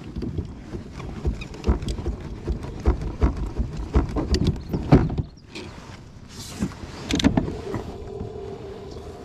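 Irregular knocks, thumps and clatter of gear being handled aboard a plastic fishing kayak. About three-quarters of the way in, a steady hum starts and holds.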